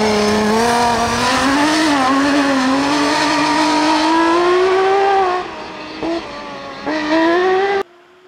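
Lancia Stratos rally car's Ferrari-built engine pulling at high revs under hard acceleration, its pitch slowly climbing. After about five seconds it lifts off and the note drops and quietens. A quick blip follows, then a last loud burst of revs that cuts off abruptly near the end.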